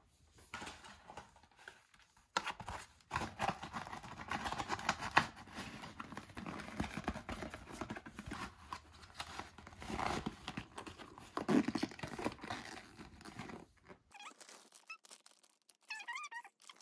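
Hands handling new Dr. Martens 1B99 leather boots and the white packing paper from their box: a dense run of rustling, scraping and small knocks. Near the end, after a short gap, a few high squeaky sounds.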